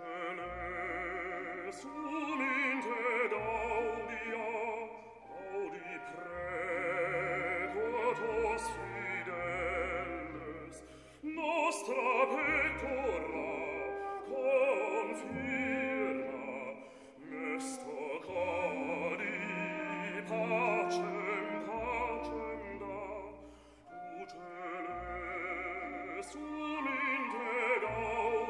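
A classical motet: voices singing with vibrato over orchestral accompaniment, in long phrases with short breaks between them.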